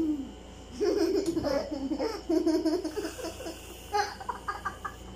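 A young girl giggling and laughing in short bursts while whipped cream is sprayed into her mouth, starting about a second in, with another quick run of laughs near the end.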